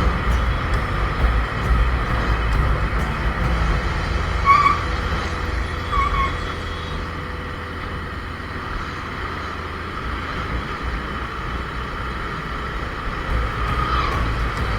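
Motorcycle riding in heavy truck traffic, with a steady low rumble of wind and engine on the rider's microphone. Two short horn beeps sound about four and a half and six seconds in.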